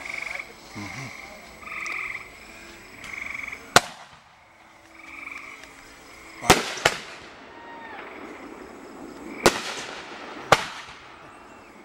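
Frogs trilling in short bursts during the first five seconds, then five sharp bangs from aerial fireworks bursting, about four, six and a half, seven, nine and a half and ten and a half seconds in, each trailing off with an echo.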